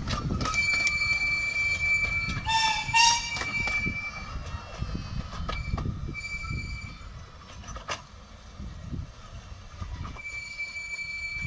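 Miniature-railway coach wheels squealing against the rail as the train rounds a curve: long high-pitched squeals, loudest a few seconds in, then fading and coming back twice more, over a low rolling rumble with occasional clicks from the rail joints.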